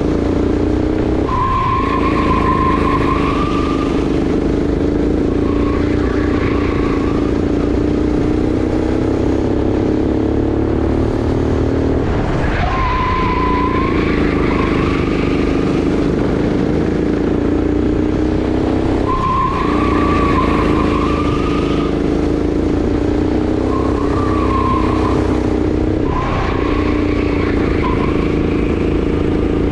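Sodi RX8 kart's 390 cc single-cylinder four-stroke engine running hard at high revs, its pitch dropping sharply and climbing back four times as the kart slows for corners and accelerates out. Tyres squeal in a high, wavering tone through each turn.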